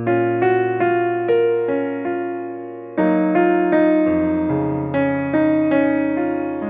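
Background music: a piano or electric piano playing a gentle melody over sustained chords, with notes struck a few times a second.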